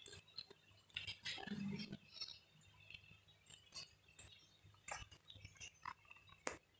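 Faint scattered small clicks and taps, irregular and a few each second, over a low hum and a thin high-pitched whine.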